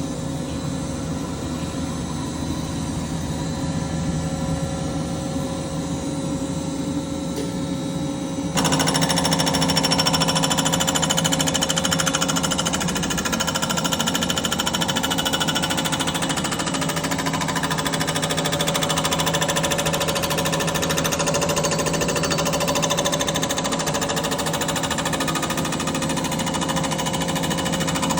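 A machine tool skimming the joint face of a jet-ski engine crankcase flat: a steady, rapid chattering cut. It gets suddenly louder about a third of the way in.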